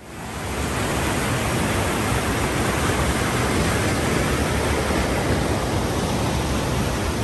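Loud, steady rushing noise with an uneven low rumble, cutting in abruptly at the start.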